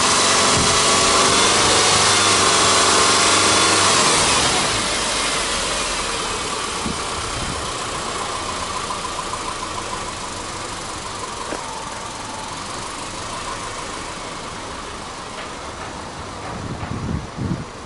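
Subaru Legacy B4 2.0i's EJ20 flat-four engine running with the bonnet open, held at raised revs for about four seconds, then easing back and settling toward idle. A few bumps near the end.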